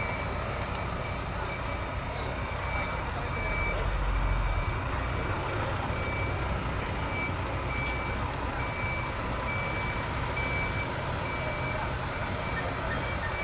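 A vehicle's reversing alarm beeping at a steady even rhythm, over the low rumble of a running engine.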